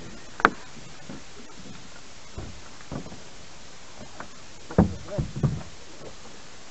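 Scattered knocks and thumps against a small boat's hull as a weed-clogged gill net is handled in it: a sharp click about half a second in, then a louder cluster of thumps around five seconds in.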